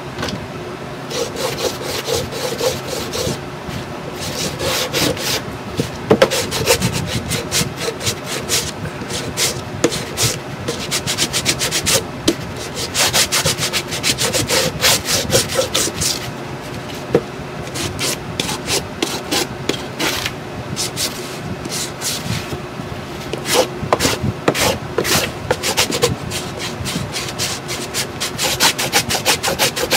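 Hand sanding block rubbed in quick back-and-forth strokes over a painted chipboard box, scratching back a coat of antiquing cream, with a few short pauses.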